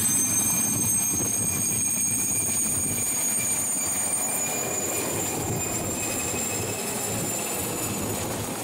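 Mil Mi-2 helicopter lifting off and climbing away, its twin turboshaft engines giving a high steady whine over the rush of the main rotor. The whine rises slightly in pitch over the first few seconds, and the whole sound gets a little quieter as the helicopter climbs away.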